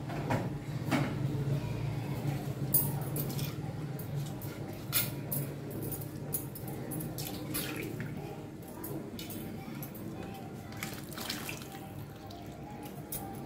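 Water being poured into a clay pot of sambar, with scattered clinks and knocks against the pot.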